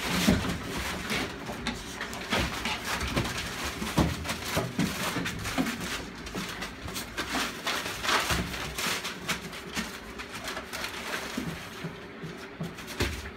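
Several pit bull type dogs shuffling about on crumpled newspaper: irregular rustling and crackling of the paper under their feet.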